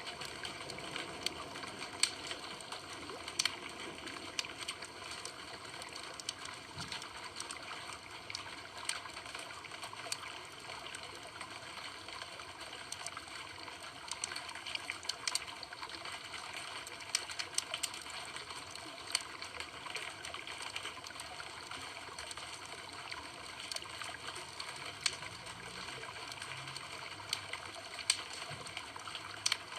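Campfire burning: a steady hiss with irregular sharp crackles and pops from the wood.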